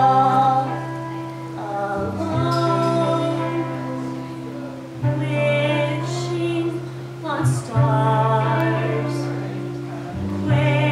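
Music: a song with a female voice singing over steady low bass notes that change about every two and a half seconds.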